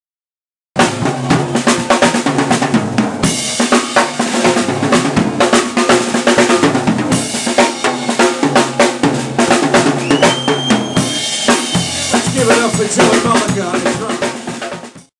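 Live rock drum kit played hard: rapid snare, bass drum and cymbal hits, with pitched band instruments sounding underneath. It starts about a second in and cuts off suddenly near the end.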